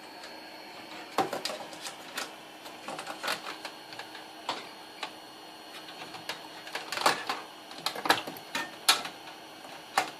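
Irregular clicks and light knocks of a motherboard and its parts being handled and fitted into a metal PC case.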